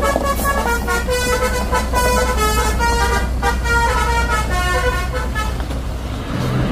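A tour bus's multi-tone 'telolet' horn playing a quick melody of short stepping notes over the low, steady running of the bus engine. The tune stops about five and a half seconds in, and a heavier truck engine comes up near the end.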